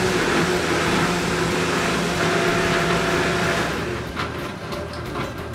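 Vitamix blender running at high speed, pureeing a thick tomato and cashew sauce, a steady whirring hum that winds down about four seconds in as it is switched off.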